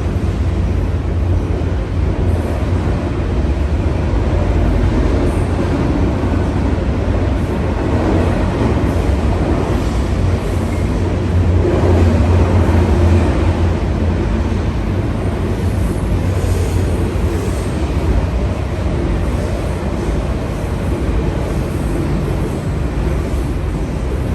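A train going by: a steady low rumble of wheels on rails, swelling a little about twelve seconds in.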